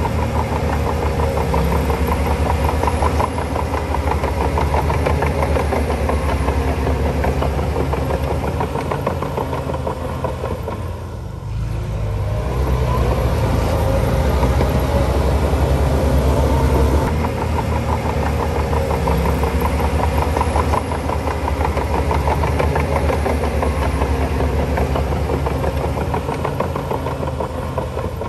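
Heavy diesel engine of earthmoving machinery running steadily under load, a deep pulsing rumble that dips briefly about eleven seconds in.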